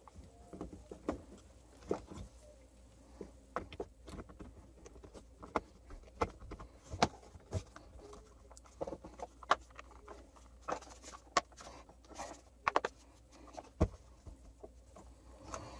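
Light, irregular clicks and taps of a hammer drill's plastic housing halves being handled and pressed together around the new cord.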